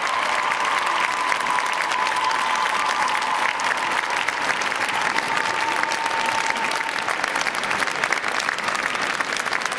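Audience applauding steadily in an ice rink arena, a dense patter of many hands clapping. A faint held tone, the tail of the performance music, fades away about seven seconds in.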